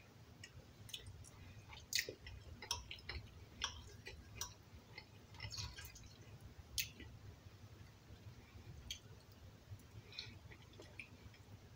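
Faint chewing of a mouthful of chicken drumstick: small wet mouth sounds and scattered clicks. A fork works at the meat on the plate.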